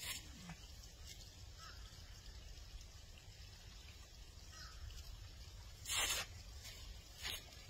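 Faint splashing and trickling of water as a freshly caught trout is rinsed off, with a few short splashes, the loudest about six seconds in.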